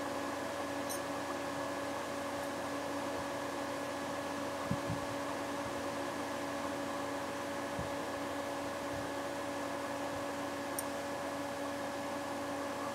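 Pedestal electric fan running steadily: an even whooshing hiss with a constant motor hum, and a couple of faint soft knocks in the middle.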